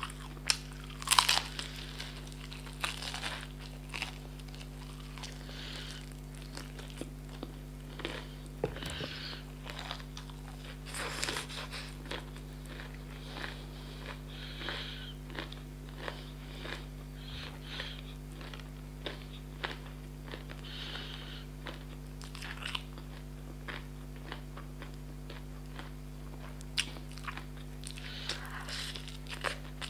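Crunchy bites into the coated skin of fried chicken, loudest about a second in, followed by repeated chewing and mouth sounds, over a steady low electrical hum.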